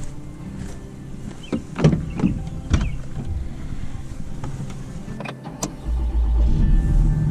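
Diesel pickup truck: scattered knocks and clicks, then a loud steady low engine rumble comes in suddenly about six seconds in and keeps running.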